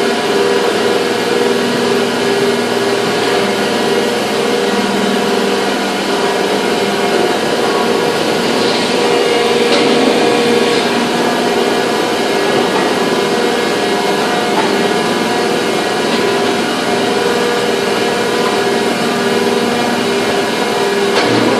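Factory machinery running: a steady, loud mechanical din with constant humming tones that drop in and out every few seconds.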